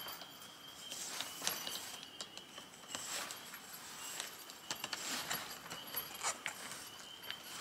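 Handling noise of a canvas swag being set up: the canvas and mesh rustle in short bursts, with irregular light clicks and knocks from the spreader pole and its fittings being worked into place.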